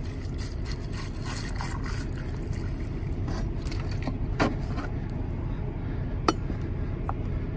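Water poured from a plastic gallon jug into a stainless steel tumbler packed with ice, the ice crackling and clinking for about three seconds. Then come a knock and, a little later, a click. A steady low rumble underlies it all.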